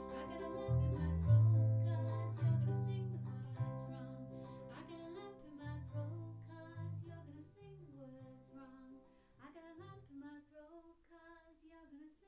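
Closing bars of a ukulele, bass and female vocal cover: strummed ukulele and a sung melody over bass notes. The bass stops about ten seconds in, and the music trails off more quietly.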